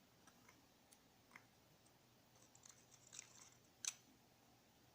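Near silence broken by faint, light clicks and ticks of small carburetor parts being handled, with a sharper click about four seconds in.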